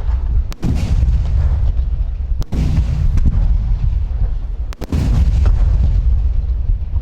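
Large aerial firework shells bursting in rapid succession, giving a continuous deep rumble of booms. Three sharp cracks stand out: about half a second in, about two and a half seconds in, and near five seconds.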